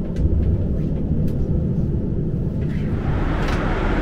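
Cabin rumble of a JR Hokkaido Kamui limited-express electric train rolling slowly into a station, with a few light clicks. About three seconds in, the rumble gives way to a brighter, wider hiss.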